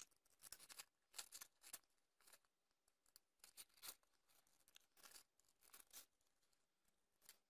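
Faint, short, irregular snips of scissors cutting a sheet of white paper.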